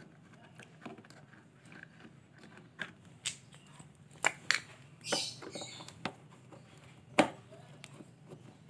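Scattered small clicks and knocks of a pressure washer's plastic handle housing and a screwdriver as the handle is taken apart, with a brief scrape a little after five seconds and a sharper knock about seven seconds in.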